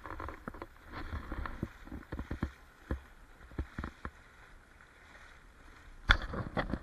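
Water lapping and sloshing against a camera held right at the river's surface, with irregular knocks and bumps of handling. It dies down for a second or two past the middle, then grows louder again near the end.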